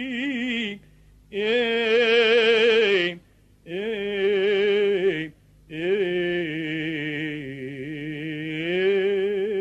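A solo male cantor chanting the Arabic Orthodox epistle reading in long melismatic phrases, with a strong wavering vibrato. He breaks three times for short breaths.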